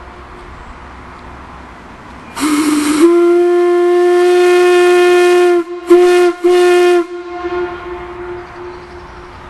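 Large steam whistle blown on compressed air from a big tank: a breathy, lower start that jumps up to one loud steady note, held for a couple of seconds, then two short toots. The echo trails off slowly after the last toot.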